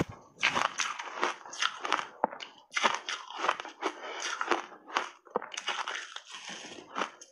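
Frozen mixed berries and ice chunks crunching as they are chewed: a rapid, irregular run of sharp crunches, with a fresh bite into a new frozen chunk near the end.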